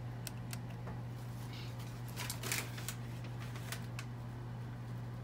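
Scattered light clicks and handling noise, bunched together about two seconds in, over a steady low hum.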